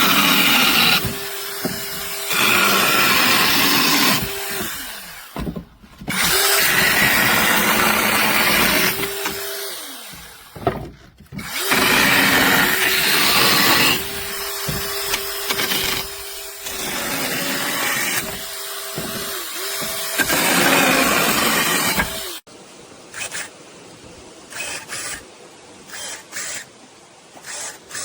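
Battery-powered mini chainsaw with a brushless motor, run in repeated bursts: a steady whine when the chain spins free, turning to a loud, noisy cut under load, with short stops in between. It stops about 22 seconds in, leaving only a few faint knocks.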